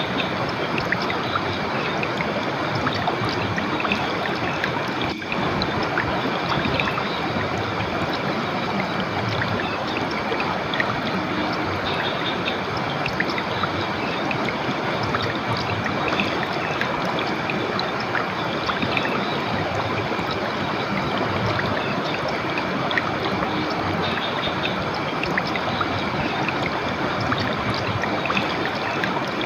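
River water running steadily, a continuous even rush of flowing water.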